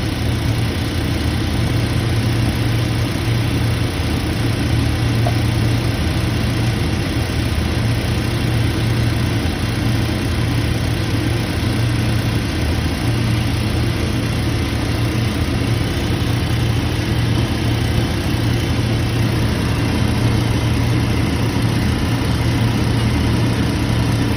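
A machine motor running steadily, a strong low hum under an even mechanical whir that holds unchanged throughout.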